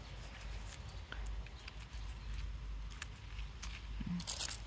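Strawberry leaves and stems rustling, with small scattered clicks, as a ripe strawberry is gripped and picked by hand, over a steady low rumble. A burst of louder, crackly rustling comes near the end.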